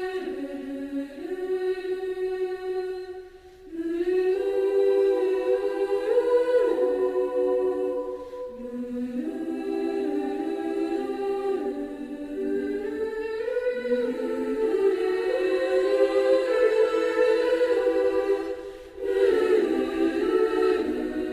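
Background choral music: several voices sing slow, held chords, in long phrases with short breaths between them.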